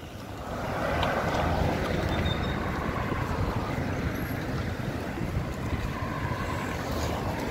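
Steady noise of wind buffeting a phone microphone, with road traffic underneath; it swells about a second in.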